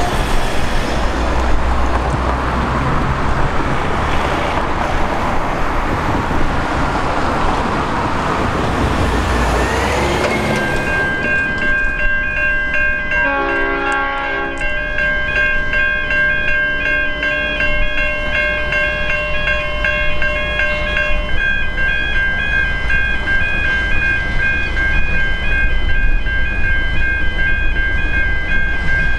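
Level crossing warning bell starts ringing about ten seconds in: a steady, rapidly repeating high ring that continues to the end. Before it there is a broad rumble of traffic and wind noise. A brief lower tone sounds a few seconds after the bell starts.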